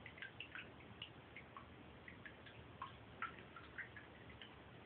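Faint, irregular little plinks and drips of water in a bathtub where a cat is moving, about four small ticks a second with no steady rhythm.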